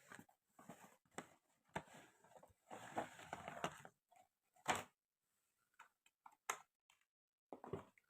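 Toy kitchen pieces and packaging being handled: scattered light taps and clicks, about a second of rustling near the middle, and one sharper click just after it.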